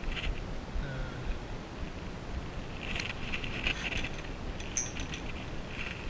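Wind buffeting the microphone with a steady low rumble, and scattered light clicks and rattles of a spinning rod and reel being handled and laid on wooden dock boards, in small clusters near the start and in the second half.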